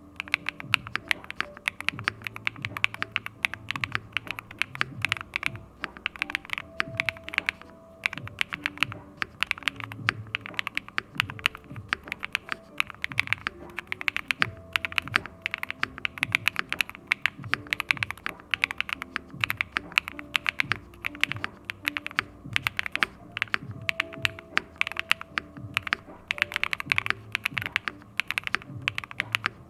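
Fast, continuous typing on a Neo80 CU mechanical keyboard with Pantheonkeys TSIC linear switches, Zenithkey PBT keycaps, an aluminium plate and a silicone gasket mount: a dense run of keystroke clacks. Soft background music with held notes plays underneath.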